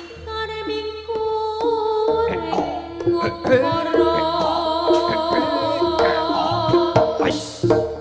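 Live Javanese jaranan ensemble music: hand-drum strokes over sustained pitched percussion notes, with a wavering melodic line joining about three and a half seconds in and a short bright splash near the end.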